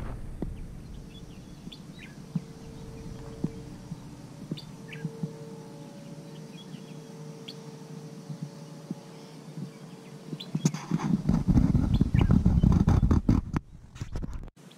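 Small birds chirping in short, scattered calls over a faint steady hum. About eleven seconds in, a loud low rumble with knocks covers them for a few seconds as the camera is handled.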